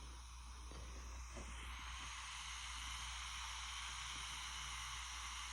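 Faint, steady hiss with a low hum underneath, unchanging throughout, like electronic or recording noise.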